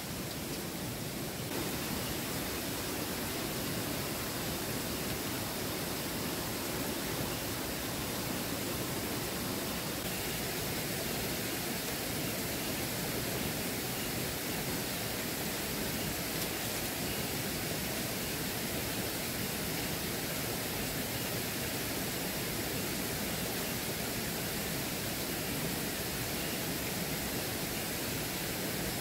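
A waterfall's steady rushing, even and unbroken.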